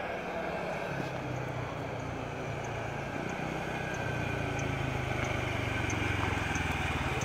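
Quad bike (ATV) engine running steadily as it rides toward the listener, growing gradually louder as it approaches.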